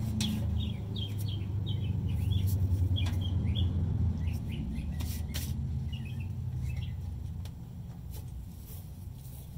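Small birds chirping repeatedly, over a low steady rumble that fades toward the end, with a few sharp clicks.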